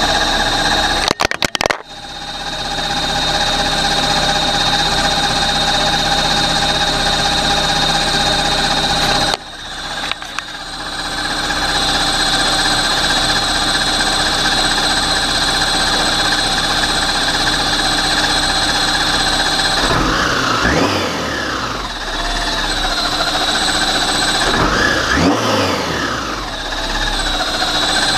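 Turbocharged car engine running at a steady idle on its first start-up after the turbo build, blipped twice in the second half, each rev rising and then falling in pitch.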